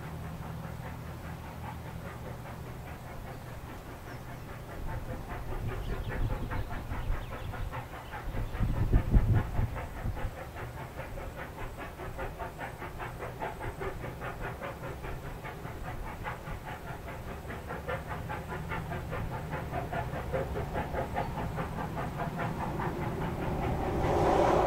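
NSW 36 class 4-6-0 steam locomotive 3642 working hard up a grade: rapid, evenly spaced exhaust beats come in about six seconds in and grow louder near the end as it approaches, over a steady low drone. A gust of wind buffets the microphone about nine seconds in.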